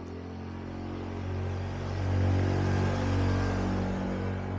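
Honda Super Cub's small single-cylinder four-stroke engine running as the motorcycle rides up the road, its steady engine note growing louder about two seconds in, then easing slightly.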